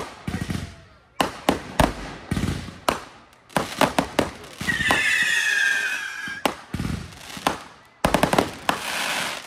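Consumer fireworks going off: repeated booms and sharp bangs, a falling whistle about five seconds in, and a quick run of crackling near the end.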